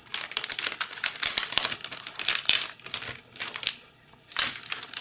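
Plastic wrapping crinkling and crackling in irregular bursts as it is handled and peeled off a new keyboard, with a brief pause about four seconds in.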